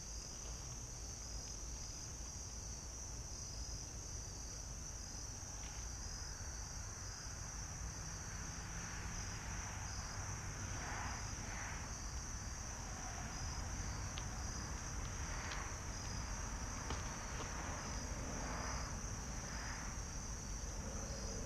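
Steady high-pitched chorus of crickets chirping, with a faint low rumble underneath.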